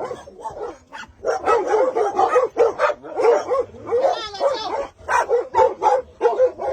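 Dogs barking in quick runs of short, high barks, about three or four a second, after a brief lull near the start.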